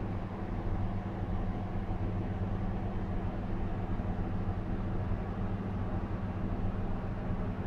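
Steady low electrical hum from a 1985 Thyssen hydraulic elevator controller's equipment, an even drone with a faint hiss over it and no change.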